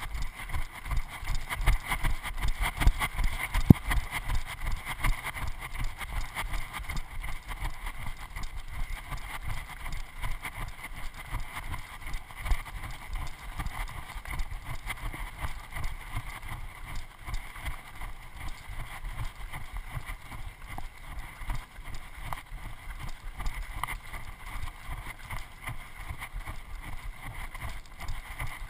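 Wind buffeting the camera microphone, with a dense low rumble of irregular thumps from footsteps on a stony mountain trail.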